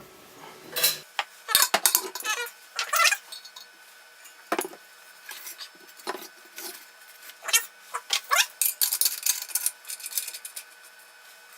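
Irregular metallic clinks and clanks as the parts of a copper still are handled and the column is closed and clamped shut, some of the strikes ringing briefly.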